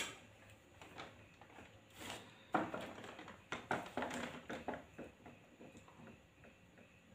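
Close eating and table-handling sounds: chewing of soft steamed breadfruit with small clicks and knocks from a plastic cup and plate. They cluster from about two and a half to five seconds in, then die down to quiet sipping from the cup.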